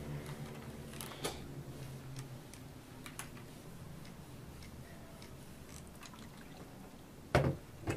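Steam iron pressed and slid over a pressing cloth to fuse iron-on interfacing: faint rubbing with light scattered ticks over a low hum, then two knocks near the end.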